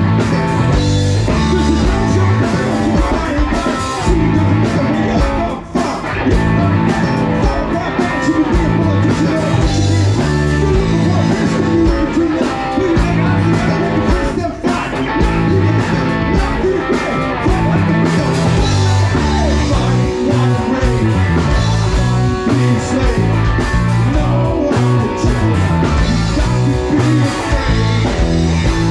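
Live rock band playing funk rock: electric guitar, bass guitar and drum kit.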